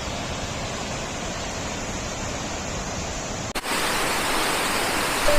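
Steady rush of running water from a creek or waterfall. About three and a half seconds in it changes abruptly to a louder, brighter rush.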